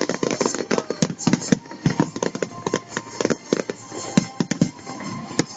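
Fireworks going off: a rapid, irregular run of sharp bangs and crackles, several per second, with music playing underneath.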